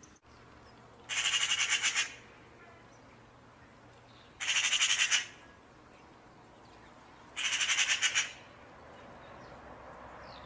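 Magpie chattering: three harsh, rattling bursts of about a second each, a few seconds apart.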